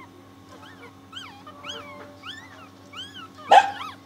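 Newborn dachshund puppies squeaking and whimpering: thin, high cries that rise and fall, about two a second. A single louder thump comes about three and a half seconds in.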